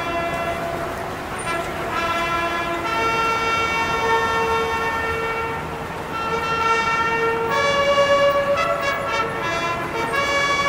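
A bugle sounding a slow call of long held notes that step between a few pitches, with a waver on one note near the end.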